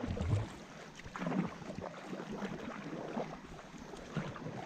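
Stand-up paddle blades dipping and pulling through river water from two paddlers on a tandem inflatable paddleboard, a stroke swelling roughly once a second.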